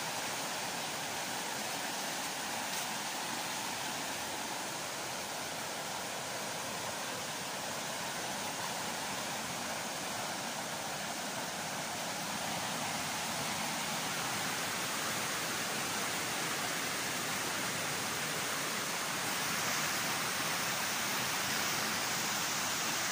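A swollen river rushing over rocks: a steady roar of white water, growing a little louder near the end.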